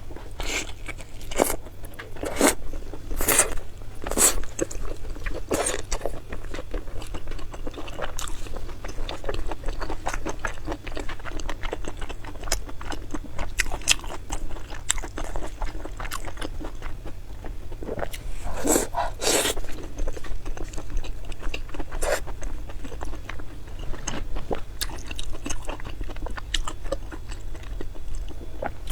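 A person biting and chewing crunchy food close to the microphone: irregular sharp crunches, louder in a few clusters, between quieter chewing.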